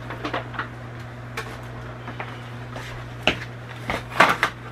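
Short clicks and knocks of a plate and utensils being handled on a kitchen counter, a few scattered through and the loudest cluster about four seconds in, over a steady low hum.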